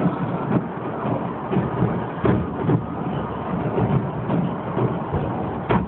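Fireworks display: a dense, irregular run of overlapping firework bangs over a continuous rumble, with one sharp, loud bang near the end.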